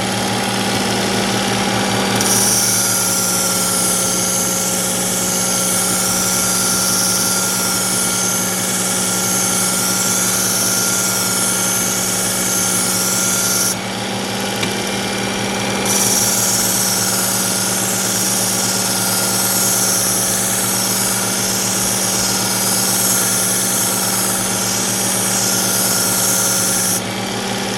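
Electric belt knife sharpener running steadily while a knife blade is ground against its fine X65 abrasive belt. There are two long grinding passes with a brief break in the hiss about halfway through.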